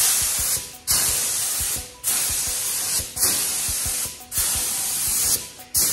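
Compressed-air paint spray gun spraying paint: a loud, steady hiss in passes of about a second each, about six in all, with short breaks between them.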